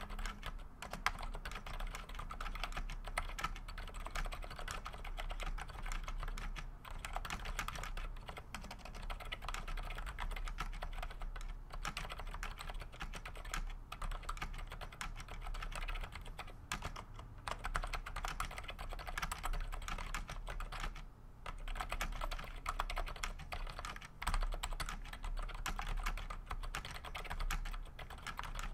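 Mechanical keyboard typed on steadily and fast: a Cherry G80-1800 with 55 g Gateron Black linear switches and GMK keycaps, giving a dense run of key clacks with a short pause about three-quarters of the way through.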